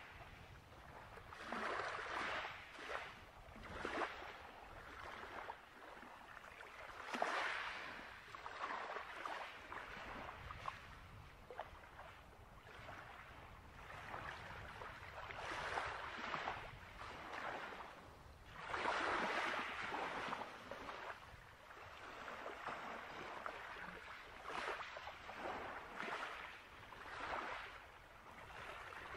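Small waves washing up on a sandy shore, a soft rushing that swells and fades every few seconds.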